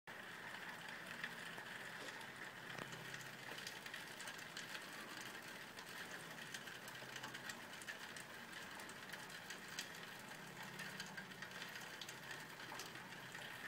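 Faint, steady background hiss with scattered light ticks; no thunder.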